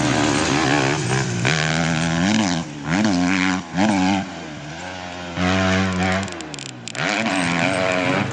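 Motorcycle engine revving: several quick blips that rise and fall in pitch, then a louder rev held for about a second near the middle before dropping back.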